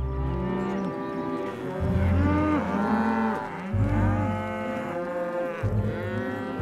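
Several cartoon cows mooing, long overlapping moos one after another.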